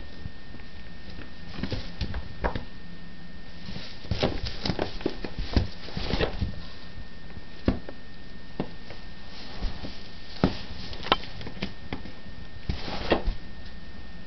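A cat on valerian moving about, making irregular soft taps, scrapes and rustles, with a few sharper knocks, over a steady low hum.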